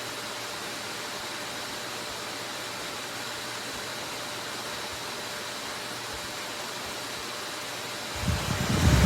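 Small handheld fan running steadily, a smooth airy hiss with a faint high whine. About eight seconds in, a much louder low rumble sets in.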